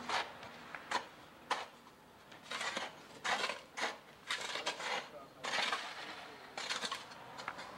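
Snow shovels and a scraper scraping and chipping at packed snow and ice on pavement: short, irregular scrapes and clinks from several people working at once.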